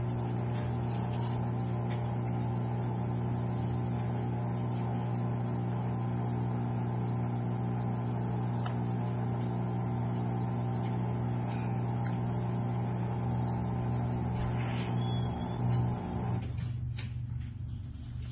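Steady electrical or mechanical hum, even in pitch, with a few faint ticks over it; about sixteen seconds in the higher part of the hum cuts off, leaving a lower hum.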